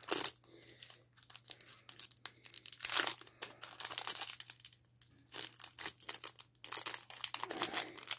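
Foil wrapper of a hockey trading-card pack crinkling and tearing in short, irregular spells as fingers pick and pull at it to get it open.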